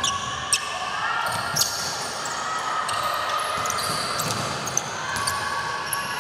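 Basketball game play: a ball bouncing on the court a few separate times, with many short, high sneaker squeaks over a steady background of hall noise.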